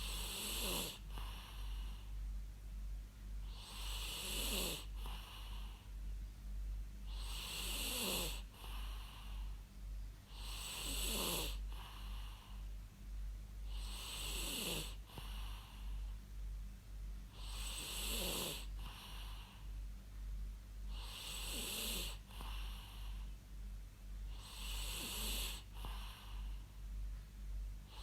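A person snoring in a slow, regular rhythm: eight snores, about one every three and a half seconds. Each is a hissing, rasping breath whose tone slides down in pitch, followed by a softer puff, over a steady low hum.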